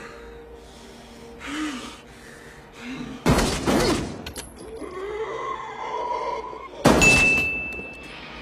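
Two pistol shots about three and a half seconds apart, each with a long echoing tail, the second followed by a brief high ringing tone. Short, heavy breaths from a man come before the first shot.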